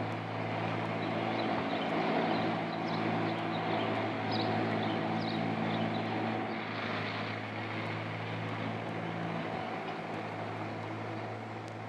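A tractor engine runs at a steady speed while pulling a tree-planting machine through the soil, giving an even, unchanging drone.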